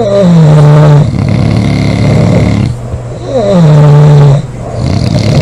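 Women snoring heavily in their sleep, with a snore about every three seconds: each one drops quickly in pitch and then holds as a steady low drone for about a second, with rougher breathing between.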